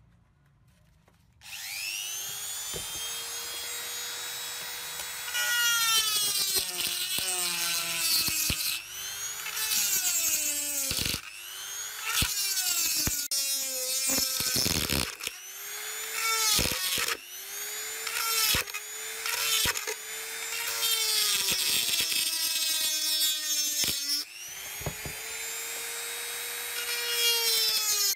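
A handheld rotary tool is switched on about a second and a half in, and its motor whine rises as it spins up. The pitch then keeps sagging and recovering as its abrasive bit is pressed against the painted metal housing of a spring balance and eased off again, with a harsh grinding rasp while it cuts through paint and rust.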